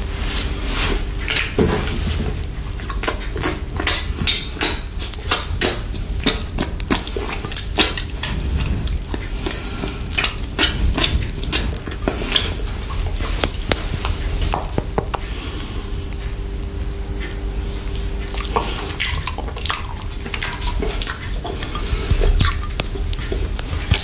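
Close-up wet mouth sounds of licking and sucking a chocolate lollipop with whipped cream, right at the microphone: a steady run of irregular wet clicks and smacks.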